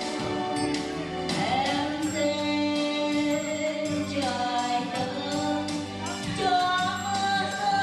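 Karaoke: a singer holding long notes with pitch slides over a backing track with a steady beat, sung in Vietnamese.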